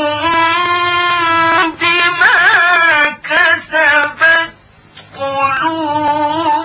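A man's voice chanting Quran recitation in the melodic mujawwad style: long held notes with a wavering ornament about two seconds in, a brief pause near the middle, then another long held phrase.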